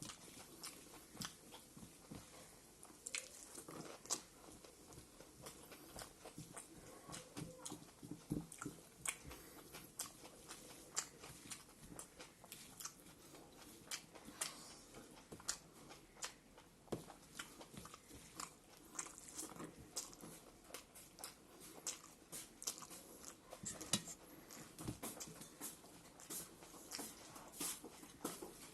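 A person eating close to the microphone: chewing and biting on rice with greens, buffalo meat and pickle, full of short wet mouth clicks and small crunches several times a second.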